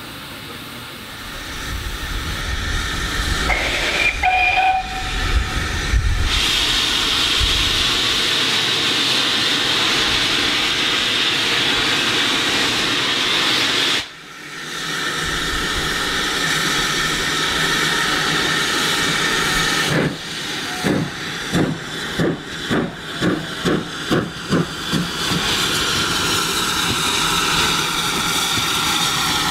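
GWR 5700-class pannier tank locomotive hissing steam, with a short whistle blast about four seconds in, then a loud steady hiss of escaping steam. About two-thirds of the way through, its exhaust beats start, roughly two a second and quickening, over the hiss of steam from the open cylinder drain cocks as it pulls away with its train.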